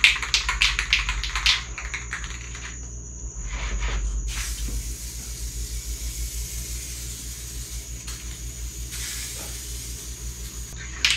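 Aerosol spray paint can rattled briefly as it is shaken, then a long steady hiss of paint spraying from the nozzle, starting about four seconds in and stopping near the end.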